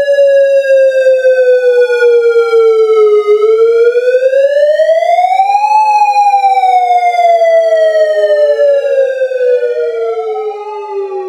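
Synthesizer app imitating the wail of a Federal Signal Modulator electronic siren: a slow siren tone that glides down, rises about three seconds in, then falls again over the following five seconds. An echo of the tone trails behind and crosses it, and the sound fades near the end.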